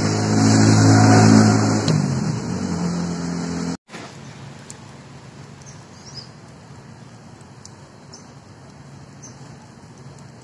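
A motor vehicle's engine passes close by, loud at first and fading about two to three seconds in. After a sudden break, light, steady rain with scattered drips.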